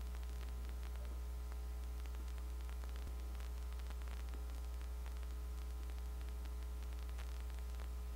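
Steady electrical mains hum with a ladder of higher buzzing tones above it, over faint hiss and a few faint clicks.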